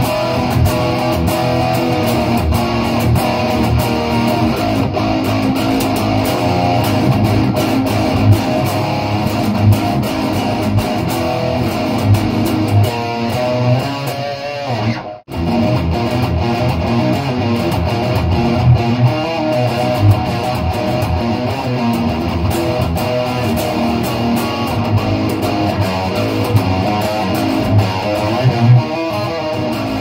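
Seven-string electric guitar with Lundgren M7 pickups played through a high-gain Bogner Uberschall Rev. Blue amp, heard through the room: dense, rhythmic riffing, with one brief stop about halfway through.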